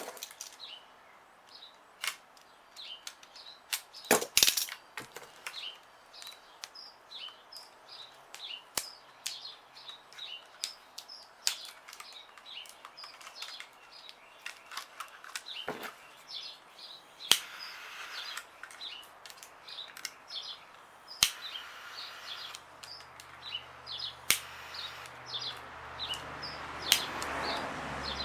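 Scattered sharp clicks and snaps from hands working on the brake light and its wrap, over birds chirping steadily. A low hum builds up over the last few seconds.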